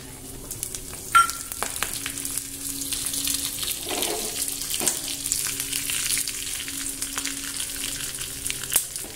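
Curry leaves, dried red chillies, mustard and cumin seeds sizzling and crackling in hot oil in a small tempering pan: the tadka for a sambar. There is one sharp click about a second in.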